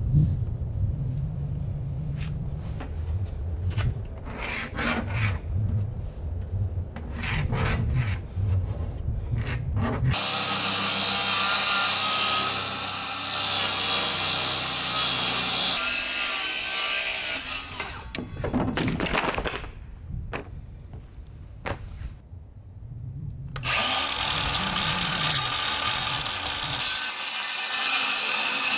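Low rustling and a few light knocks, then, about ten seconds in, a battery-powered circular saw starts cutting a sheet of plywood. The saw stops briefly partway through and then runs again through the rest of the cut.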